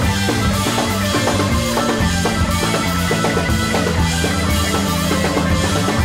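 Background rock music with a steady drum beat.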